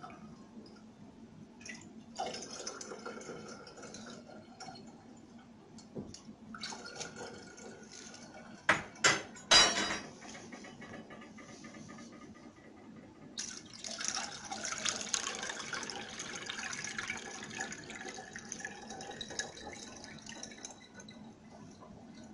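Lemonade being ladled and strained through a cheesecloth into a glass jug: liquid splashing and trickling. Three sharp knocks come about nine seconds in, and a steady trickle of liquid runs through the cloth from about halfway on.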